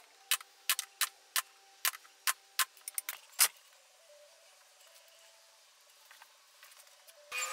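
A pneumatic nail gun firing about ten times in quick succession, roughly three shots a second, as it fastens a thin backing panel onto the back of a wooden mirror frame; the last shot is the loudest. After that it is quiet until a louder steady hiss starts near the end.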